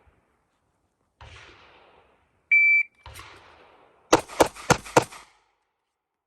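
A shot timer beeps once, then about a second and a half later a handgun fires four quick shots roughly a quarter second apart: a timed four-shot string with 0.26-second splits.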